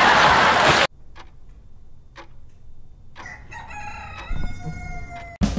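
A rooster crowing, one long call starting about three seconds in, after a second of rustling tent fabric that cuts off suddenly.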